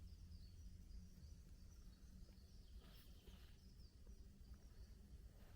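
Near silence: quiet forest ambience with a low rumble, faint distant bird chirps in the first couple of seconds and a brief soft rustle about three seconds in.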